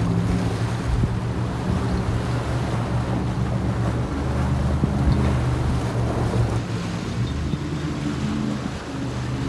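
Sea waves washing against a rocky shore, with wind buffeting the microphone, over a steady low hum that fades in and out.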